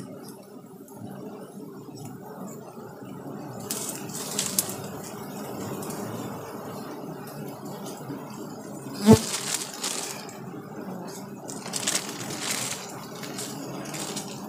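A swarm of giant honeybees buzzing steadily around their comb as it is cut away, with rustling now and then and one sharp knock about nine seconds in.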